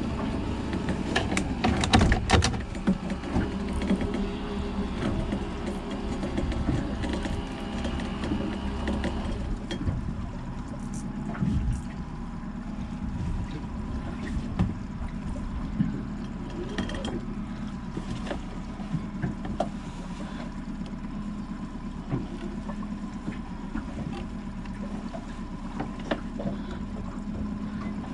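Outboard motor running steadily at trolling speed, with several sharp knocks about two seconds in and scattered clicks afterwards from the fishing rod and reel being handled while a fish is played.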